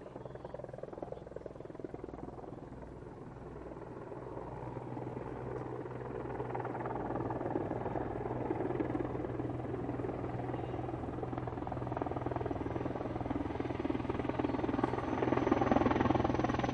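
Helicopter flying overhead, its rotor and engine growing steadily louder as it comes closer.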